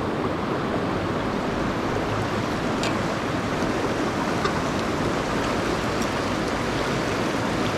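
Steady rush of river water running over the rocks, even and unbroken, with a couple of faint ticks on top.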